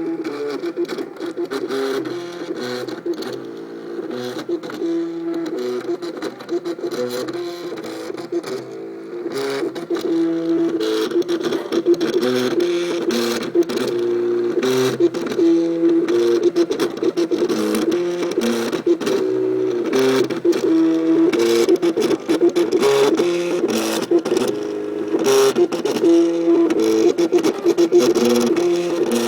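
MakerBot Cupcake CNC 3D printer printing: its stepper motors whine in tones that jump from pitch to pitch every fraction of a second as the head moves, with frequent clicks. It gets louder about ten seconds in.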